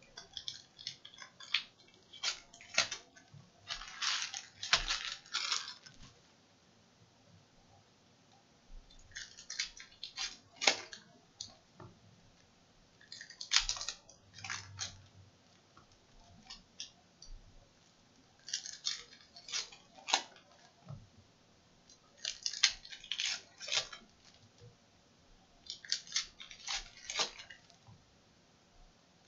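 Upper Deck Goodwin Champions card packs being torn open and handled, the wrappers crackling and rustling, in bursts every few seconds with quiet gaps between.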